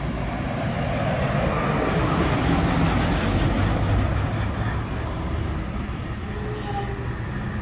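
Diesel fire engine driving past close by: its engine rumble and tyre noise build to a peak about three seconds in, then fade as it pulls away.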